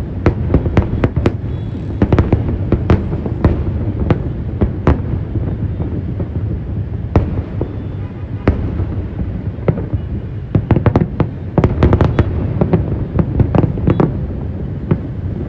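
Aerial fireworks display: a continuous low rumble of shell bursts with many sharp cracks, thinning out in the middle and then a dense barrage of rapid cracks.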